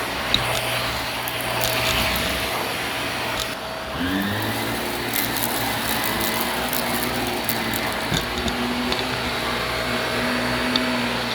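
Vacuum cleaner running steadily. About four seconds in, its motor note rises in pitch, then holds.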